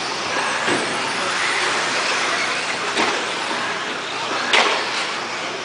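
Radio-controlled 4WD off-road race cars running on an indoor dirt track: a steady, dense whir of motors and tyres, with a few sharp knocks, the loudest about four and a half seconds in.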